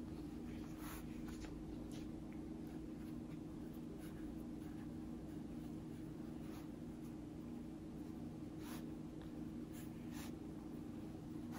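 Soft, intermittent rustling and brushing of hands rolling a strip of layered pancake dough into a coil on a wooden cutting board, over a steady low hum.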